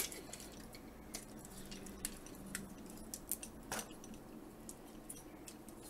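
Faint, scattered clicks and light taps of hard plastic as a Transformers Classics Optimus Prime figure with add-on arm parts is handled and its arm joints are moved, one click a little louder near four seconds in.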